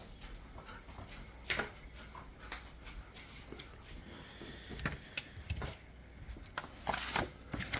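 Paper scratch-off lottery tickets being handled: light rustling, scraping and taps, with a few sharper clicks about a second and a half in and near the end.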